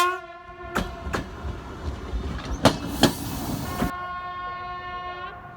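Train wheels clattering, with a few sharp knocks and a hissing rush that cuts off abruptly about four seconds in. Then a train horn sounds one steady tone for about a second and a half before stopping. The tail of a louder horn blast ends right at the start.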